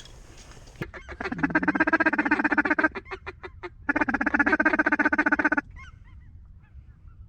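Goose honking in two long runs of rapid, evenly pulsed honks with a few separate short clucks between them, stopping about two-thirds of the way in.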